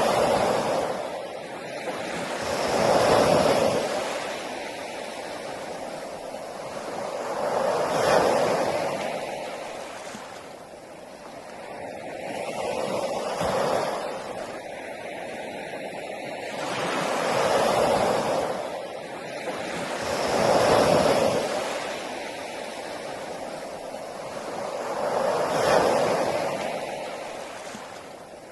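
Sea waves breaking on a beach, each one swelling to a rushing peak and then washing back, about every four to five seconds.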